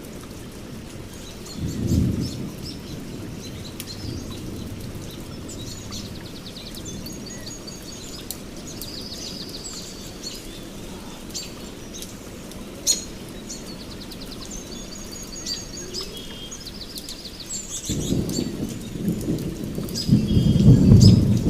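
Steady rain with birds chirping and calling over it through the middle. A short low thunder rumble comes about two seconds in, and a longer, louder rumble builds near the end.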